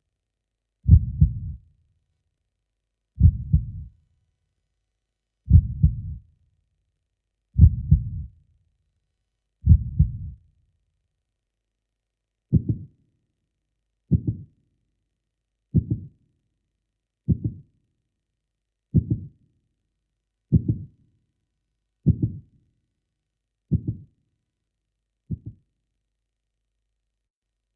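Heartbeat sound effect: low, dull thumps with silence between them, at first about one every two seconds, quickening after about twelve seconds to one every second and a half, each beat shorter than before. The beats stop shortly before the end.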